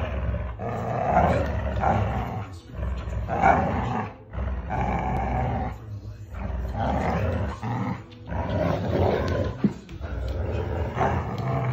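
Two dogs growling in play as they tug against each other on a rope toy, in rough bouts of about a second with short breaks between them.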